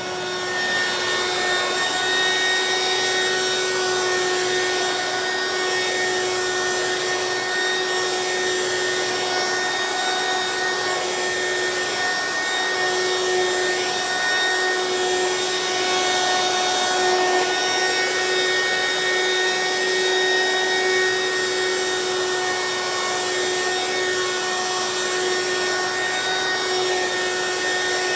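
Hoover Quik Broom Encore S2551 straight-suction stick vacuum running steadily at its high speed setting: a constant motor whine over rushing air, with rubbing as the suction nozzle is pushed over a low pile rug.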